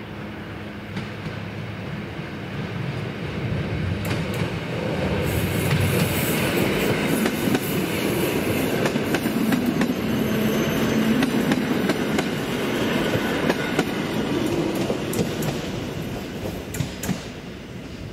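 EN57 electric multiple unit approaching and running past: a low hum as it nears, then a loud rush of wheels on rail with irregular clicks over the rail joints, fading away near the end.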